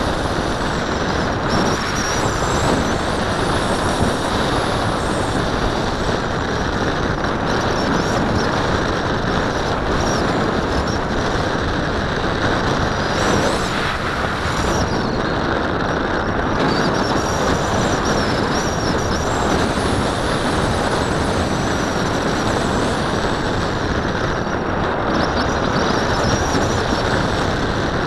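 Wind rushing over an RC glider's onboard camera in flight: a steady rush of airflow, with faint high whistles that rise and fall in pitch now and then.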